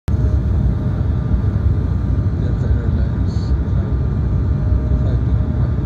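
Steady low rumble of engine and airflow noise inside a jet airliner's cabin while it descends on approach to land, with a faint steady tone above the rumble.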